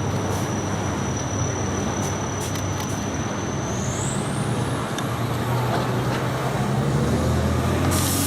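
Fire engine's diesel engine running steadily, with a thin high whine that glides upward about four seconds in. A hiss of air starts near the end.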